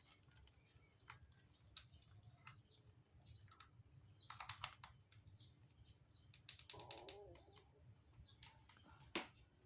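Faint, scattered clicks and light taps from handling a small unboxed item and its packaging, with two quick runs of tapping, and a brief chirp-like sound a little past the middle.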